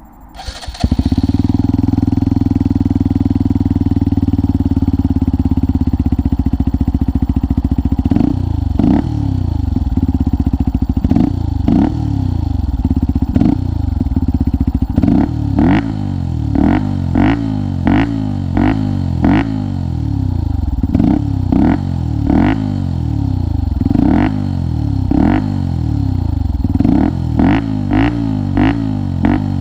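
Motorcycle with a Lextek OP1 full exhaust system starting up about a second in and idling, then revved in a long series of short throttle blips from about eight seconds on, the pitch jumping up and falling back each time.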